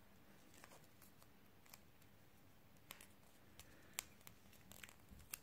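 Faint, scattered clicks and rustles of fingers handling a small motor assembly and pressing electrical tape down over it. The sharpest click comes about four seconds in.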